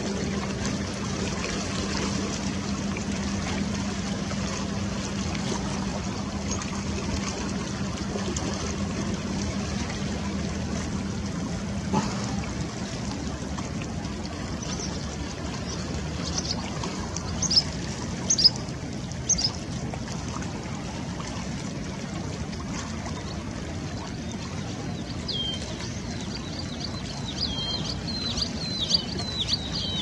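River water washing steadily, with a low steady hum in the first part. A few sharp, high bird chirps come about halfway through, and a quick run of high chirps near the end.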